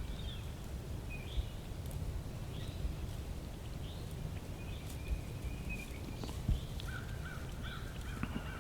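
Birds calling in the woods: a string of short, high chirped notes, then a quick run of about four lower notes near the end, over a low background rumble.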